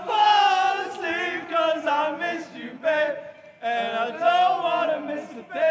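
Several voices singing together, choir-like and chant-like, in phrases of about a second with short breaks between them.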